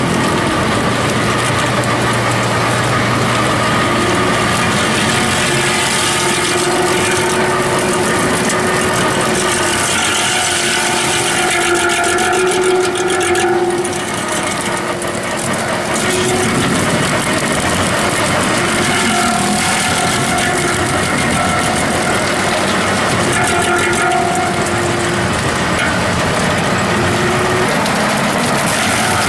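A 150 hp farm tractor's engine running under load while its PTO drives a MeriCrusher MJH-1.2 STG stump crusher, the rotor running steadily and grinding stumps and soil into mulch. The level eases briefly about halfway through.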